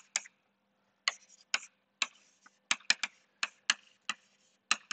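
Chalk writing on a blackboard: irregular sharp taps and short scratches as letters are formed, about two or three a second, over a faint steady hum.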